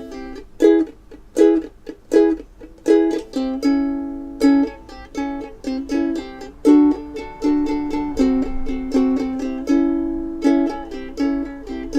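Ukulele strumming chords in a steady rhythm, an instrumental break with no singing.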